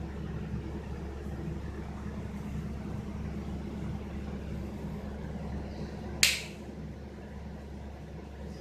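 Steady low hum with a single sharp click about six seconds in.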